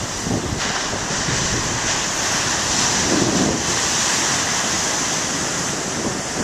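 Big ocean waves breaking and surf washing ashore, a steady hiss that swells slightly about three seconds in, with wind buffeting the microphone.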